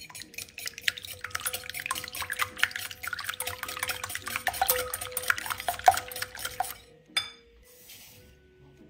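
Stainless steel wire whisk beating eggs in a glass bowl: a fast, uneven clatter of the wires ticking against the glass. It stops about seven seconds in, and is followed by a single clink and a brief soft hiss as sugar is poured into the bowl.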